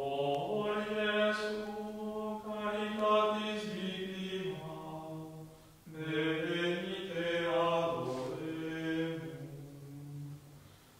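A slow liturgical chant sung in long held notes. It comes in two phrases, with a short break about six seconds in.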